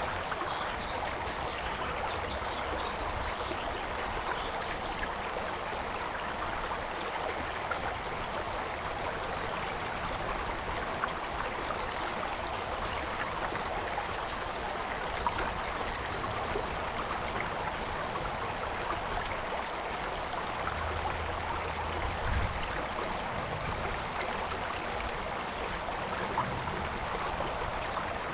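Soguksu Stream flowing over rocks: a steady rush and babble of running water.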